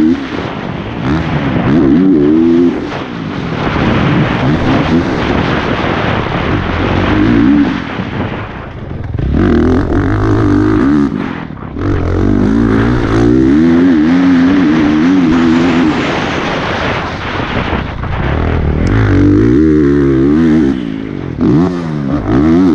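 Honda CRF450RX's 450cc single-cylinder four-stroke engine revving hard, its pitch rising and falling again and again as the rider shifts and works the throttle at race pace, with wind rushing over the bike-mounted microphone. The revs drop off briefly several times where the throttle is chopped.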